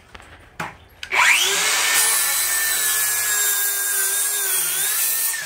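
DeWalt Flexvolt 7-1/4-inch cordless circular saw, on a 9.0 Ah Flexvolt battery, spinning up about a second in with a rising whine. It then cuts steadily through a thick plank at an even pitch, the motor whine over the rasp of the blade in the wood, and starts to wind down at the very end.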